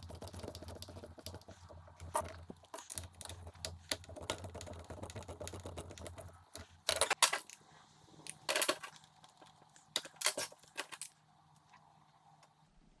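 Small hard parts and tools clicking and clacking as they are handled, over a low steady hum that stops about halfway through. A few louder clacks come in the second half.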